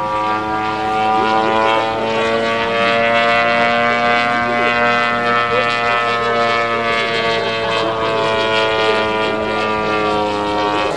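Model aerobatic airplane's engine and propeller droning steadily in flight overhead, the pitch slowly rising and falling as it manoeuvres.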